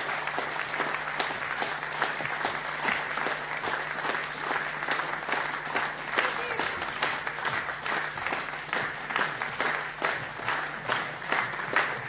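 Audience applauding: many hands clapping at once in a dense, continuous patter.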